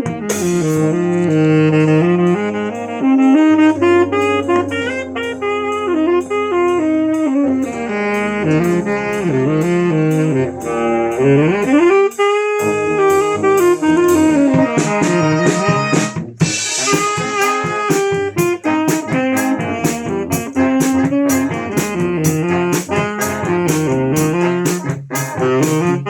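Live brass band playing a melody on saxophone and other horns over a drum kit with steady cymbal and drum hits. Near the middle one horn line slides upward in pitch.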